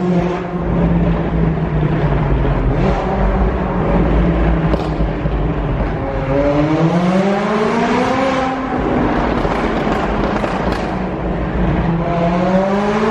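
McLaren supercar's twin-turbo V8 heard from the driver's seat while driving through a tunnel. The note holds steady at first. About six seconds in it climbs in a long pull, drops back, and rises again near the end.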